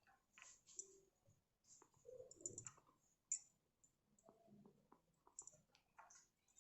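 Near silence with a few faint, scattered clicks and light taps as cashew nuts are placed on the batter; the sharpest click comes about halfway through.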